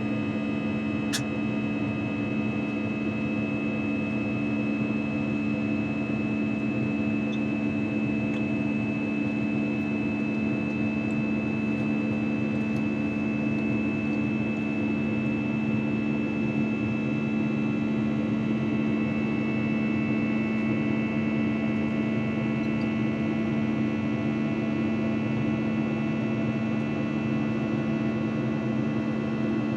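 Airbus A321 jet engines and airflow heard inside the passenger cabin: a steady drone with several constant hum tones that does not change. There is one faint click about a second in.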